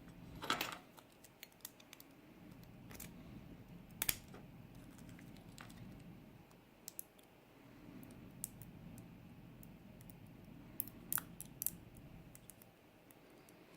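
Lock-picking tools working inside a pin-tumbler lock cylinder: small, irregular metal clicks and scrapes over faint handling noise, with louder clicks about half a second and four seconds in and a quick run of clicks near eleven seconds. The lock is tight to work.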